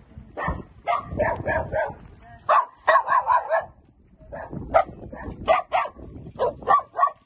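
Dogs barking: many short barks in quick runs of several, with brief gaps between the runs.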